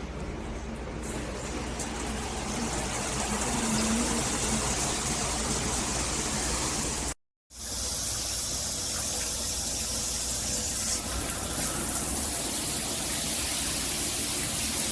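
Water spraying steadily from a shower head. It breaks off for a moment about halfway through, then carries on.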